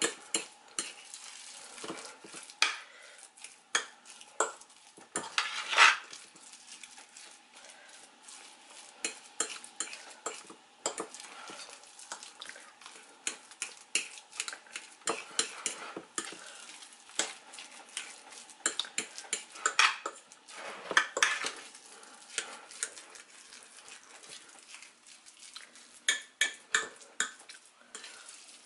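Metal fork stirring and mashing sweet potato and egg in a glass baking dish, with frequent irregular clicks and scrapes of the tines against the glass.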